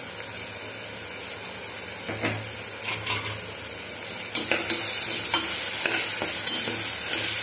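Onion-tomato masala and spice powder sizzling in oil in a pressure cooker pot. About four seconds in the sizzle grows louder as a metal ladle starts stirring, with short knocks and scrapes of the ladle against the pot.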